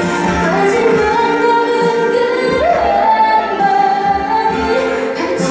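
Female solo vocalist singing a Korean pop song live into a handheld microphone with musical accompaniment; about halfway through, a held note steps up in pitch and is sustained.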